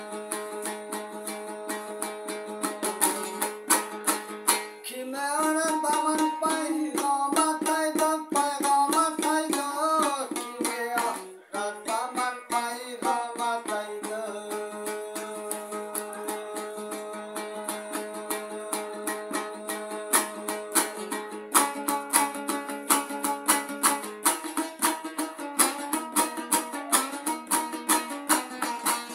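Afghan dambura strummed fast and steadily, its two strings sounding a ringing drone under the melody. A man's voice sings a long phrase over it from about five seconds in until about fourteen seconds in.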